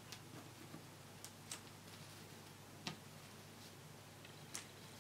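A handful of faint, light ticks of stiff wafer paper strips being handled and woven by hand on a tabletop, spaced irregularly.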